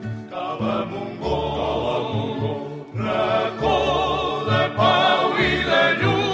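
A habanera sung by a vocal group in harmony, the voices wavering with vibrato over repeated low accompaniment notes.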